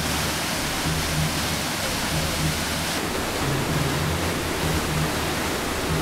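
Waterfall rushing through a narrow rocky gorge: a loud, steady hiss of white water. Low bass notes of background music come and go underneath it.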